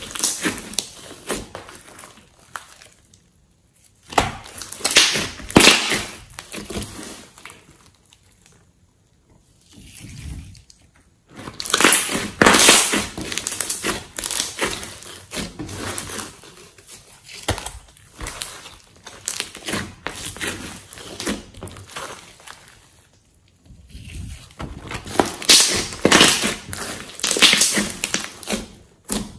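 Hands squeezing, stretching and folding a large lump of red slime mixed with clay. It gives dense wet crackling and popping as air is pressed out, in bursts of a few seconds with short quiet pauses between.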